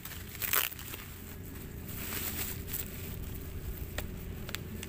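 Cardboard and plastic packaging rustling and scraping as a fishing rod is unwrapped by hand, loudest about half a second in, with a couple of sharp ticks near the end. A steady low rumble runs underneath.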